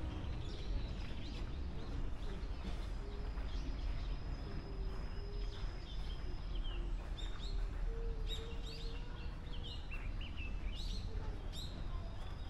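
A young boy humming a tune, a thin wavering line of notes, while small birds chirp in short falling calls, more of them in the second half, over a low steady rumble.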